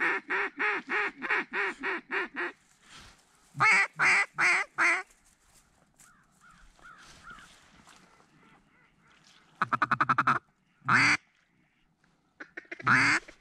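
Mallard duck call blown in hen quacks: a run of about ten quacks at about four a second, then four louder quacks, a quick rattling feed chuckle about ten seconds in, and two single quacks near the end.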